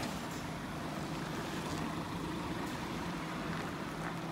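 Scania P230 street sweeper truck idling steadily, a constant low engine hum.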